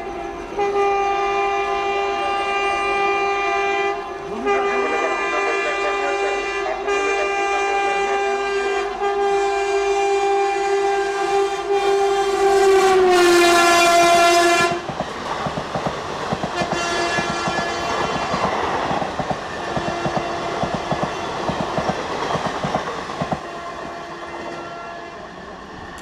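The WAP-4 electric locomotive's horn sounds a long, nearly continuous blast with a couple of brief breaks, growing louder as it approaches. Its pitch drops as the locomotive passes about thirteen seconds in, and it stops soon after. Then the passenger coaches rush past, with the rattle and clatter of wheels over the rail joints.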